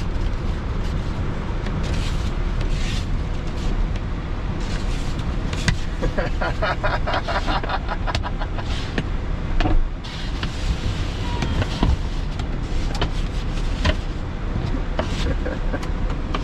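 Blizzard wind buffeting a parked van in a steady low rumble, with scattered scrapes and knocks from snow and ice being cleared off the windscreen, including a run of rapid scraping strokes about six seconds in.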